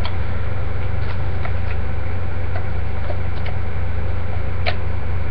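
A steady low electrical hum, with a few faint light clicks of plastic being handled, the clearest near the end.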